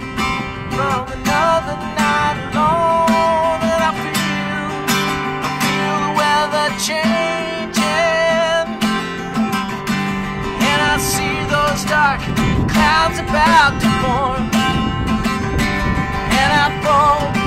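Acoustic guitar strummed in a steady rhythm, with a man singing over it in long, wavering notes.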